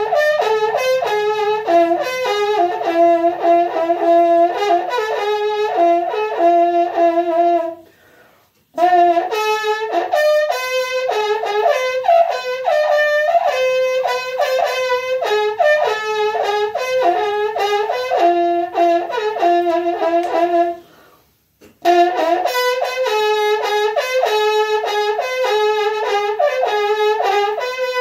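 Ñolkin, the Mapuche trumpet made from a hollowed plant stalk with a horn bell, playing a quick, repeating figure that jumps among a few overtone notes. It comes in three phrases, with two short breaks about 8 and 21 seconds in.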